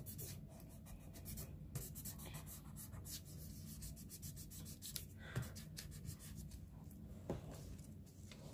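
Faint scratching of a pencil on drawing paper in short, quick strokes, about two or three a second, with a couple of slightly louder taps about five and seven seconds in.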